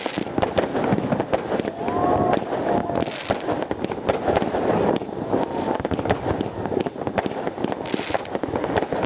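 Many fireworks going off at once: dense, continuous crackling and popping without a break.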